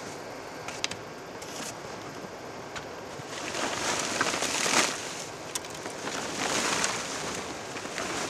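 Snow being brushed and shoved off a compact tractor: a few light taps of the brush, then two longer swishes of snow sliding and falling off, about three and six seconds in.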